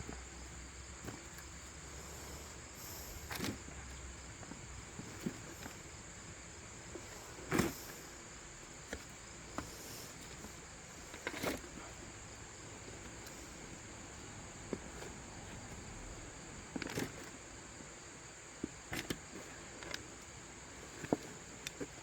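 Insects chirring in a steady, high, even drone, with a few scattered short knocks and scrapes over it.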